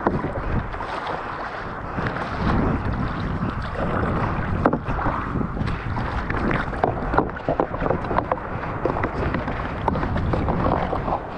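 Water splashing and sloshing around a kayak on the sea in the rain, with irregular small splashes and wind buffeting the microphone.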